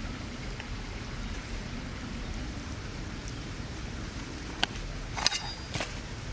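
Steady low outdoor background noise, with three sharp clicks in the last two seconds; the middle click rings briefly like a small metal clink.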